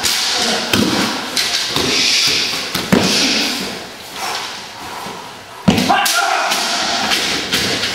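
Thuds and slaps from a staged martial-arts fight with the kyoketsu shoge against staff-wielding attackers: bodies falling and hitting the floor, strikes and footwork. Several sharp impacts, the loudest about six seconds in.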